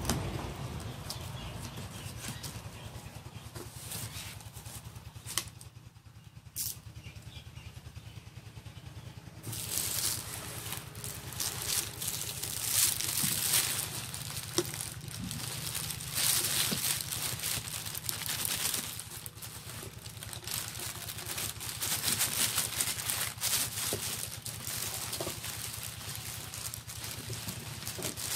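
A cardboard shipping carton being opened by hand: tape cut and pulled, flaps folded back and the box inside handled. There are a few sharp clicks at first, then busy rustling and scraping of cardboard from about ten seconds in, over a steady low hum.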